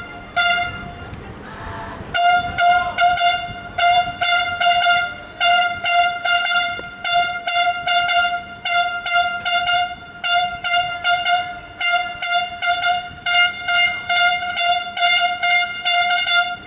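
A car horn honked in a fast rhythmic pattern of short beeps, several a second on one steady pitch, breaking off about half a second in and starting again at about two seconds.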